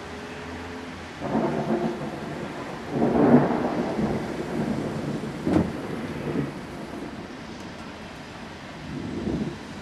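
Thunder in several rolls over a steady background hiss. The loudest roll comes about three seconds in, a sharper clap follows near the middle, and a softer rumble comes near the end.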